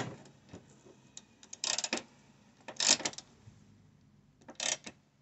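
Ratcheting box-end wrench clicking in four short bursts as a headlight mounting bolt is snugged down.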